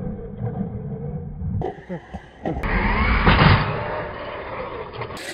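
Traxxas X-Maxx electric RC monster truck driving hard over grass with a whining motor, then ramming a toy-grade RC truck with a crash about three seconds in.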